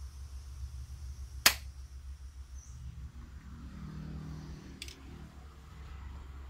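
A sharp click about one and a half seconds in and a lighter click near the end, from a tool working the spring clip on a coolant hose at the thermostat housing, over a steady low hum.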